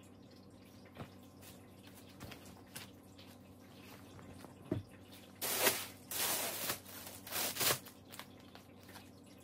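Packaging and clothing being handled: light clicks and a soft thump, then several loud bursts of crinkling and rustling over about two seconds in the second half.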